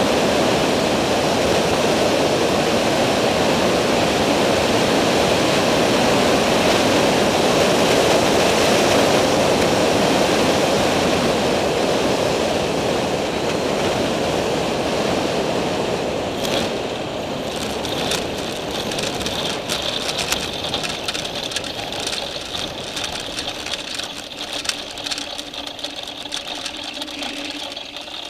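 Skyranger microlight landing: a steady rush of wind and engine noise on the approach, then, about halfway through, it goes quieter with the engine near idle and a rapid rattle of knocks as the wheels roll over the grass strip.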